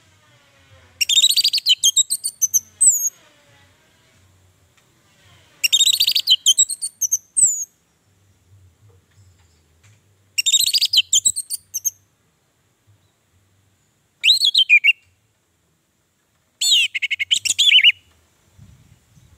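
Orange-headed thrush singing: five separate phrases of fast, high-pitched sweeping and twittering notes, each one to two seconds long, with pauses of a few seconds between them.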